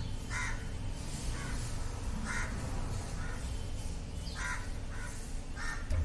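A crow cawing repeatedly, about six calls roughly a second apart, louder and fainter ones alternating, over a low steady background rumble.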